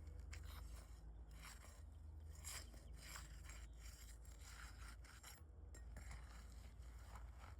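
Faint scraping and rubbing of asphalt shingles being handled and worked into place, in short strokes over a low steady wind rumble.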